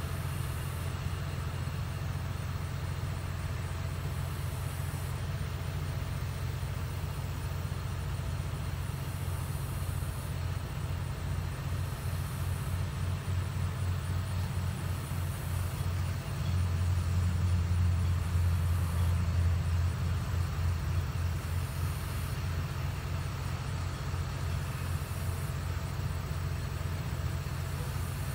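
A parked delivery box truck's engine idling: a steady low rumble that grows louder for a few seconds past the middle, then settles back.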